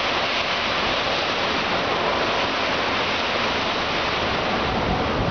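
Hurricane wind blowing hard and steadily through the trees, a continuous rushing noise, with a brief low rumble near the end.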